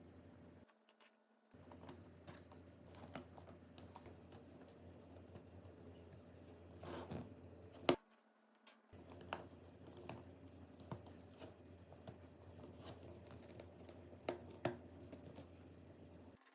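Faint scattered clicks and light scratches of small hand tools working on phone parts, over a low steady hum, with one sharper click about eight seconds in. The sound cuts out completely twice for about a second.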